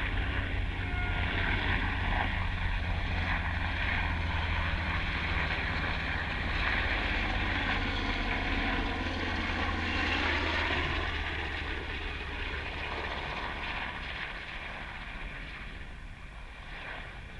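Propeller-driven military aircraft flying over: a steady engine drone that slowly fades away over the last several seconds.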